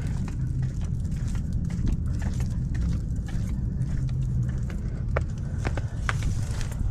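Low rumbling, rubbing noise from a camera on a cat's collar as the cat moves, with a few sharp clicks near the end.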